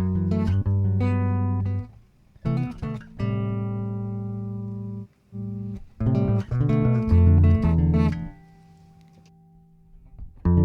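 Electric bass guitar played dry, straight with no compression: a line of plucked notes, with one note held for a couple of seconds, then more notes that die away to a low ringing note before the playing starts again near the end.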